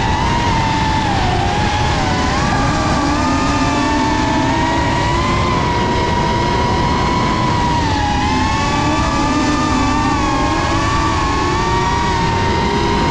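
Winged sprint cars' V8 engines running hard as they race on a dirt track, mixed with the wavering whine of a racing quadcopter's motors as it chases them.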